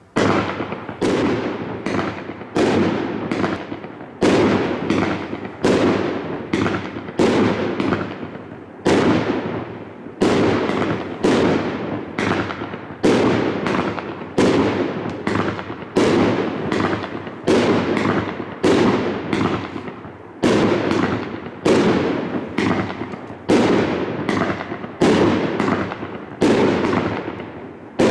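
Sky Dazzler EXTREME 25-shot firework cake firing its shots in a steady run. Sharp bangs come about one a second or faster, each trailing off.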